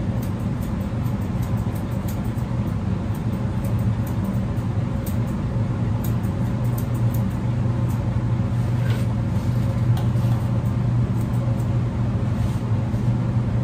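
A steady low motor hum inside the mobile grooming van, with faint quick snips of curved shears trimming fur on a dog's paw.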